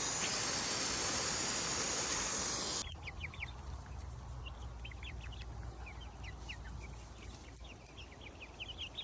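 A steady rushing hiss like running or spraying water for nearly three seconds, cut off abruptly. Then a quieter stretch of many small birds chirping in short, high, falling peeps.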